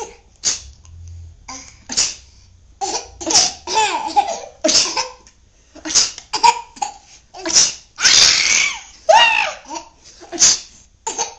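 An almost 11-month-old baby laughing in short, repeated bursts, amused by sneezing. A longer, noisier outburst comes about eight seconds in.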